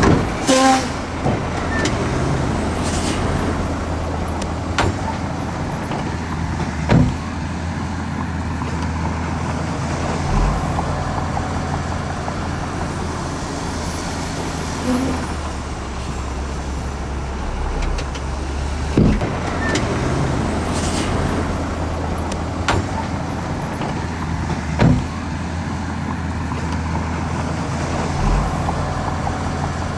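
Heavy diesel engine running steadily, with sharp knocks and clanks every few seconds.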